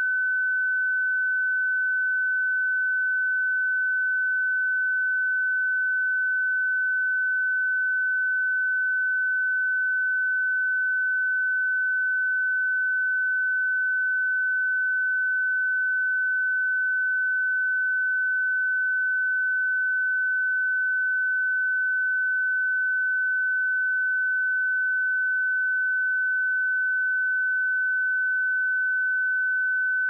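Pure 1512 Hz sine-wave test tone: a single steady high-pitched beep held at a constant level, with no other sound.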